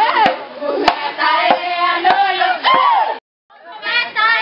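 A group of voices singing a dance song together, with sharp claps in the first second. The sound cuts out for a moment about three seconds in, then the singing resumes.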